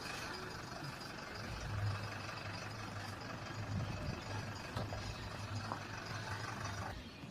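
Steady engine and road noise inside a moving vehicle, with an uneven low engine hum under a constant hiss.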